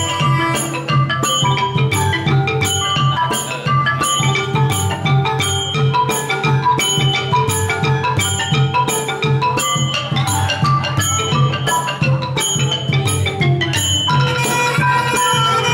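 A Khmer pinpeat ensemble plays a fast, busy melody on wooden roneat xylophones and a gong circle over a pair of large skor thom barrel drums. A bright tick keeps a steady beat about twice a second, and the notes grow denser near the end.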